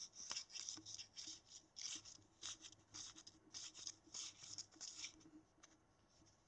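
Faint, repeated rubbing of a round magnet swiped over a 5.25-inch floppy disk's paper sleeve, about two to three strokes a second, stopping about five seconds in: the disk is being hand-erased with the magnet to wipe its old formatting.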